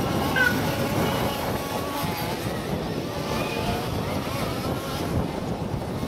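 Several large-scale radio-controlled off-road buggies' small two-stroke engines buzz around the track, their pitches rising and falling as the drivers work the throttle. Wind noise on the microphone runs under them.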